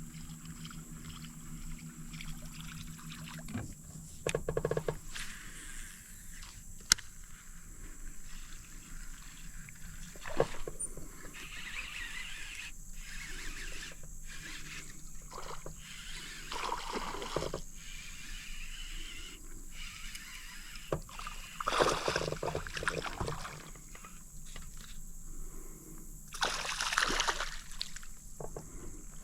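A boat motor's steady low hum cuts off about three and a half seconds in. After it come scattered clicks and knocks and some water sloshing around the fishing boat.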